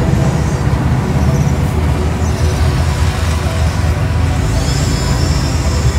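Road traffic noise, with a heavy vehicle's engine running steadily at low pitch. A faint high whine joins about four and a half seconds in.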